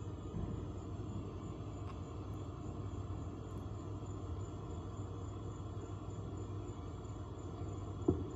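Steady low rumble of outdoor background noise, with one brief knock near the end.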